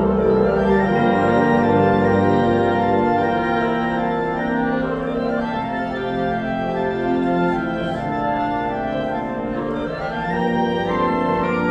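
Symphonic wind ensemble playing slow, sustained chords that shift from one to the next, with an organ-like blended sound.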